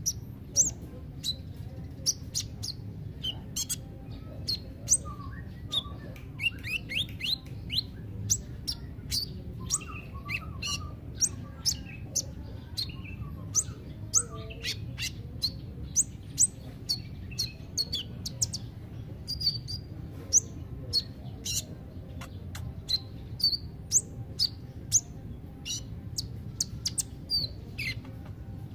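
Male purple-throated sunbird (kolibri ninja) singing: a rapid, continuous string of short, high, thin chirps and squeaky notes, several a second.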